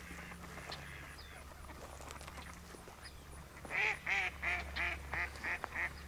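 A mallard quacking: a quick run of about eight short quacks, roughly three a second, starting a little past halfway in.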